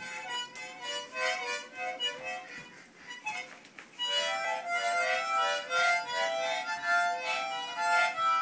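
Two young children blowing small plastic toy harmonicas, playing chords in short repeated puffs rather than a tune. The sound grows clearly louder about four seconds in.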